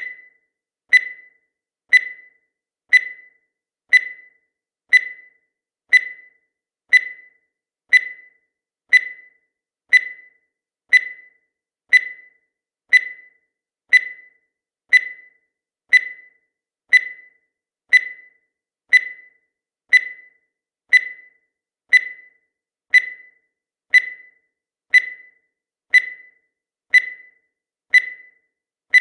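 Countdown timer sound effect: a short, high-pitched tick once every second, evenly spaced and dying away quickly after each stroke.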